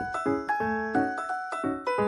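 Background music: a quick melody of short struck notes, several a second.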